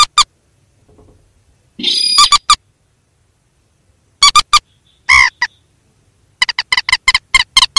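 Rail calls of the mandar and sintar, as played to lure birds into nets: short, sharp, loud notes in irregular clusters, one harsher call about two seconds in, then a rapid run of notes near the end.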